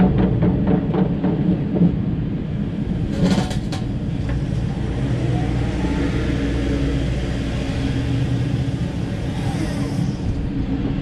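2014 Takeuchi TB1140 excavator's diesel engine running steadily under hydraulic load as the upper structure swings around, with a short burst of knocking about three seconds in.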